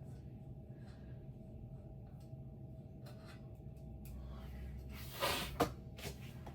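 Low steady hum with a few faint clicks, then a short rustling scrape ending in a sharp click about five seconds in: handling noise.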